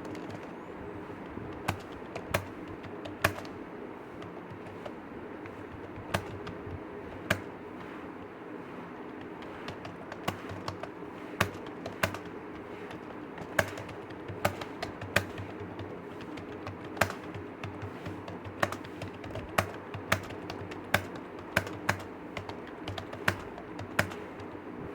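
Typing on a computer keyboard: irregular key clicks, with some strokes much louder than the rest, over a steady low hum.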